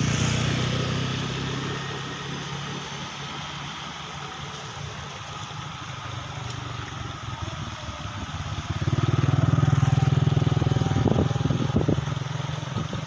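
A small engine running: loud at first, easing off, then swelling again about nine seconds in, with a few light clicks near the loudest part.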